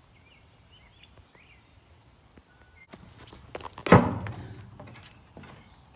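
A few faint high chirps, then scattered knocks and rustling and one loud thump about four seconds in, from the phone being jostled in the hand.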